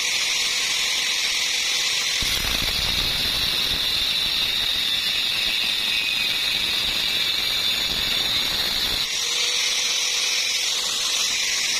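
Angle grinder with a thin cut-off disc running at speed with a steady high whine. From about two seconds in, the disc bites into a flat steel bar and the sound turns rougher and fuller. About nine seconds in it cuts through, and the disc spins free again.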